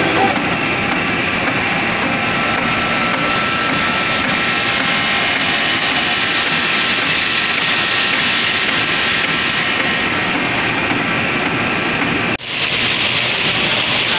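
Paper bag factory machinery running: a loud, steady mechanical din from the paper trimming machine. About twelve seconds in it breaks off for an instant and comes back with more hiss, the running of the paper twine bag-handle machine.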